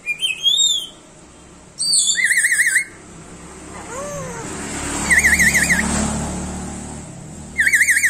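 Black-capped lory whistling: a short rising-and-falling call at the start, then three loud warbling trills of about a second each, at about 2 s, 5 s and right at the end. Between the trills a vehicle passes on the road, its noise swelling from about 3 s and fading by about 7 s.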